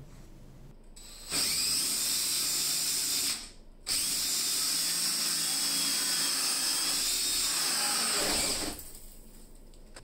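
Cordless DeWalt drill spinning a hole saw into a door to bore the door-knob hole. It runs for about two seconds, stops briefly, then runs again for about five seconds before stopping near the end.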